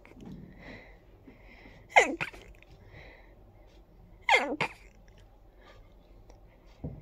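A person sneezing twice in a sneezing fit, about two seconds in and again past four seconds. Each sneeze is a sharp burst with a falling cry and a quick smaller burst right after it, with soft breaths in between.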